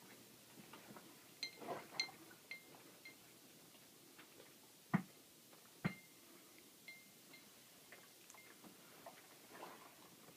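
Faint, scattered clicks and light clinks, some with a brief high ring, with two sharper dull knocks about five and six seconds in.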